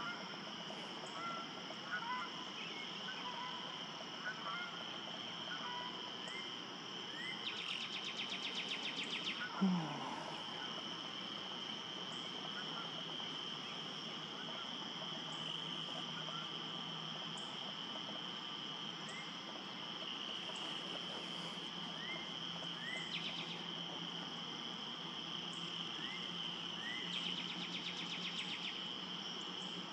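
A chorus of calling frogs and insects: a steady high-pitched trilling, with stretches of faster pulsed trills and many faint short rising chirps. About ten seconds in, a louder brief sound sweeps down in pitch.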